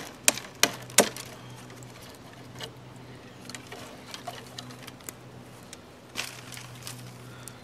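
A Casstrom No. 10 Swedish Forest Knife chopping into a thin green branch: a quick run of sharp chops, about three a second, that stops about a second in. Only faint light ticks and rustling follow.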